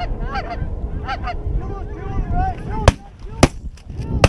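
Geese honking repeatedly as a flock comes in, then shotgun shots: two about half a second apart, with another right at the end, and the honking breaks off as the shooting starts.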